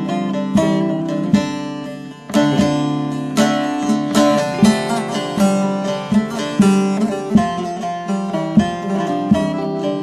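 Instrumental break of a Turkish folk song: plucked string instruments play a melody over sustained bass notes with a steady beat, the music briefly thinning about two seconds in.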